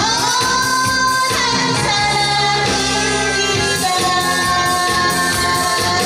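A woman singing into a microphone over instrumental accompaniment, amplified through a PA system, holding long notes. The opening note slides up and is held, then the melody steps down to lower notes.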